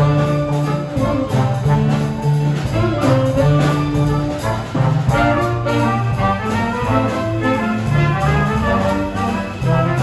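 Small band of flute, trombone, saxophone and trumpet, with keyboard and drum kit, playing a tune together, the brass to the fore over a moving bass line.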